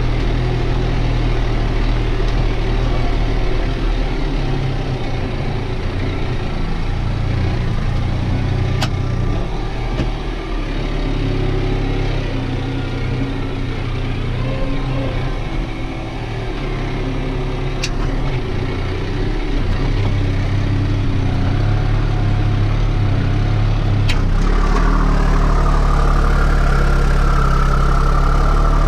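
Diesel engine of a New Holland TT4.65 tractor running steadily under load while it pulls a mounted plough, heard from inside the cab. A few faint sharp clicks come through. Near the end the engine note rises and grows a little louder.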